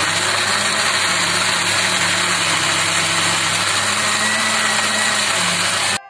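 Electric countertop blender motor running steadily, grinding a spice paste of chillies, shallots and garlic into a smooth purée. The sound breaks off for a split second near the end.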